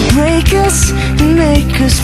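Background music: a pop-rock song with a steady drum beat, a bass line and a melodic lead.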